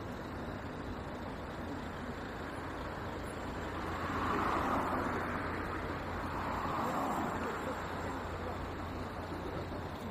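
Street traffic ambience: a steady low rumble of traffic with vehicles passing, swelling twice, about four and seven seconds in.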